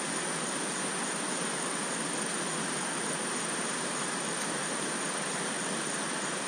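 Steady rushing of flowing water from a rainforest creek, an even wash of sound with no rhythm or change in level.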